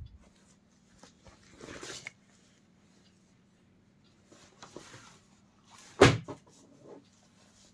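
Denim jeans being handled, the stiff fabric rustling in short bursts, with one sharp knock about six seconds in, the loudest sound, followed by a few small clicks.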